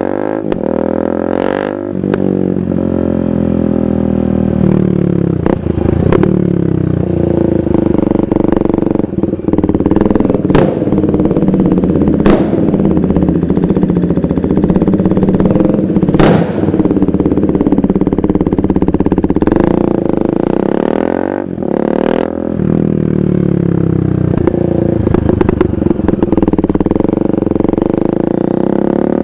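2015 KTM 390 Duke's single-cylinder engine through a KO Lightning aftermarket exhaust, riding through the gears. The revs rise and fall with the shifts, and there are several sharp cracks. It eases off briefly about three-quarters of the way through, then pulls away again.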